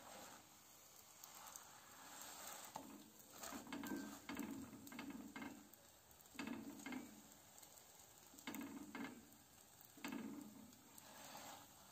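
Faint sizzling of a msemen flatbread frying in an aluminium pan, broken by several short bursts of a spatula pressing and scraping the flatbread against the pan.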